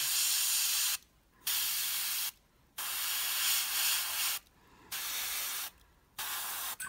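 Gravity-feed airbrush spraying paint in short hissing bursts, about five of them with half-second pauses between, as a highlight is dusted onto the raised areas of a small miniature shield.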